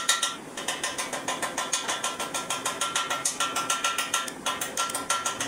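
Motor-driven sheet-metal rolling machine with chain and sprocket drive running as it curves a steel sheet, giving a rapid, even clicking with a thin whine at times.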